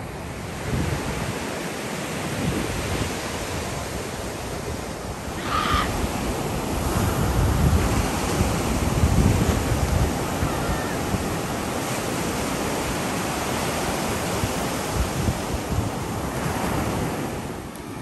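Ocean surf washing in on a beach, with wind buffeting the microphone; the surf and rumble swell louder about six seconds in and ease off after about eleven seconds.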